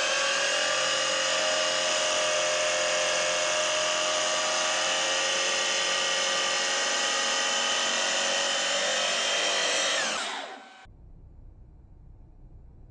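CNC polygon lathe's spindle drive running at steady speed with a high, multi-toned whine, then winding down in pitch and stopping about ten seconds in, leaving a faint low hum.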